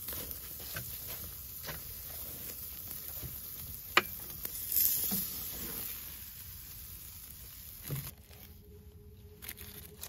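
Steak sizzling on a Weber Q1200 propane grill, with metal tongs clicking against the grate. There is a sharp click about four seconds in and a louder burst of sizzle about five seconds in. The sizzle thins out about eight seconds in, as the steak comes off.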